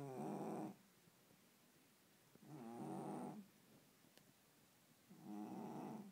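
A sleeping cat snoring: three snores about two and a half seconds apart, each lasting about a second.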